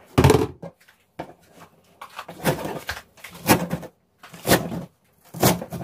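Kitchen knife chopping through a bunch of garlic chives onto a plastic cutting board: about five sharp chops, roughly one a second.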